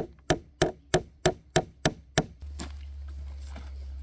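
A rapid series of sharp, evenly spaced knocks, about three a second, stopping a little over two seconds in. A steady low rumble follows.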